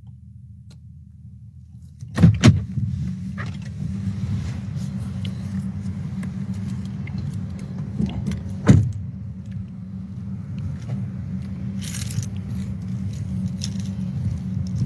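A car door being opened, with a knock about two seconds in and another sharp knock near nine seconds. Then comes a steady low rumble of wind and handling noise on a phone's microphone as it is carried outdoors, with a brief jingle near the end.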